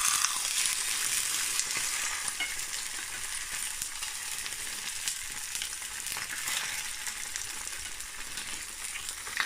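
Marinated fish frying in hot cooking oil: a steady, dense sizzle with scattered small pops, loudest at first and easing slightly.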